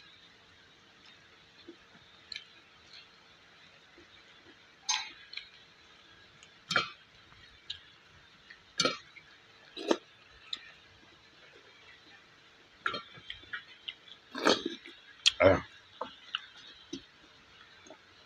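Close-up eating sounds of a person eating rice by hand: chewing and lip smacks coming as short, scattered sounds, the loudest bunched in the last few seconds. A faint steady hum runs underneath.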